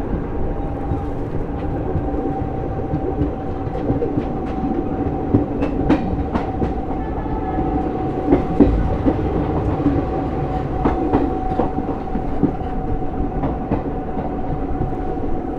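Passenger train running on the rails: a steady rumble of wheels and track with irregular clacks as the wheels cross rail joints, and a steady whine throughout.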